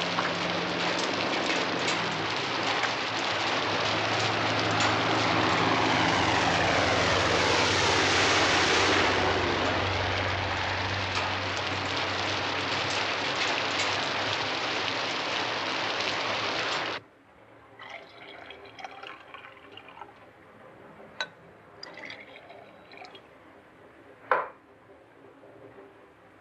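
A loud, steady rushing noise with a low hum underneath, which cuts off abruptly about seventeen seconds in. What follows is quiet ambience with a few light clicks and knocks, one sharper knock near the end.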